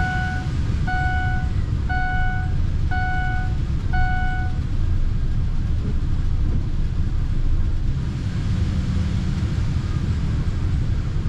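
Ford pickup truck's engine idling right after being started on fresh oil following an oil change. Over it, a warning chime beeps about once a second, five times, and stops about four and a half seconds in.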